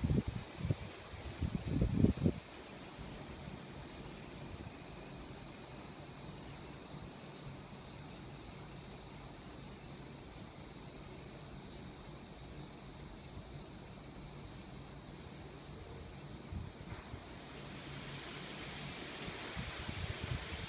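A steady, high-pitched chorus of singing insects with a faint regular pulse. A few low thumps come in the first two seconds and again near the end.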